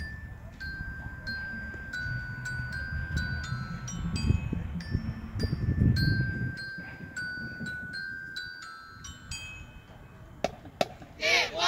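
Marching band front-ensemble mallet percussion playing a slow melody of single, ringing bell-like notes over a low rumble. Near the end a loud shout of voices breaks in.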